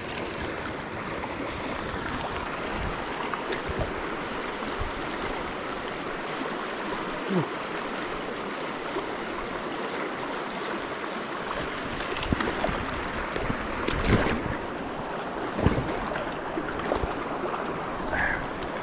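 A small trout stream rushing steadily, running high with floodwater. A few short knocks and thumps come in the second half.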